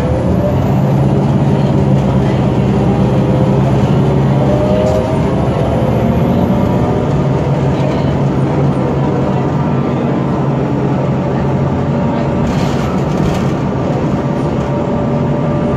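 Detroit Diesel Series 50 four-cylinder diesel engine of a New Flyer D40LF transit bus heard from inside the passenger cabin, running under load as the bus pulls away and gathers speed. The engine note changes about five seconds in, and a faint rising whine comes through over the engine.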